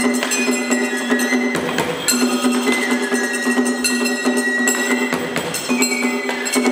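Live Japanese traditional ensemble music: a high melody with falling slides over a held low note, with steady sharp wooden-sounding percussion strokes. The held note breaks off briefly about a second and a half in and again near the five-second mark.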